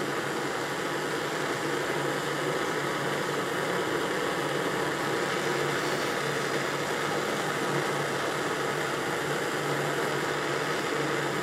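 Jeweller's gas torch flame burning steadily, a constant noisy rush, as it heats a sterling silver ring before the silver solder flows.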